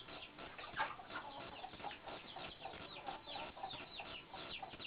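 Chickens clucking, with many short, high chirps falling in pitch, several a second.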